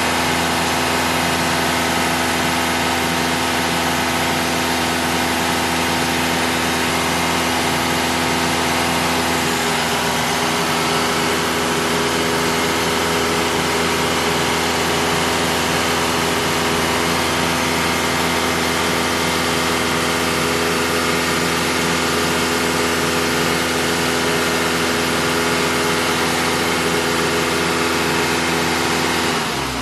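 Toyota Camry 2.4 L four-cylinder engine idling with the electric radiator cooling fans running, a steady loud whir whose tone shifts about ten seconds in. Both fans running while the engine idles with the heater on shows the engine has reached operating temperature and the cooling system has bled after the water pump replacement.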